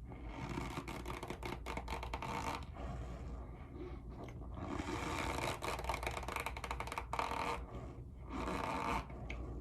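Loud squeaking and scraping friction noise, rough and crackly, in long stretches that fall away briefly twice.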